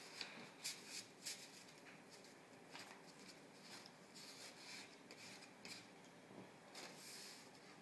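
Faint rustling and rubbing of construction paper being handled and glued with a glue stick, in a string of short scrapes.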